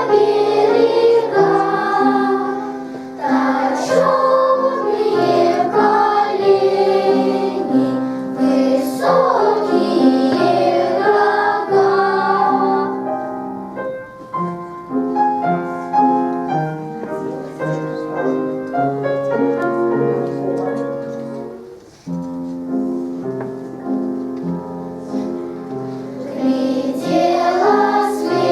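Young children's choir singing with piano accompaniment. About halfway through the voices stop for a piano-only passage, and the singing comes back in near the end.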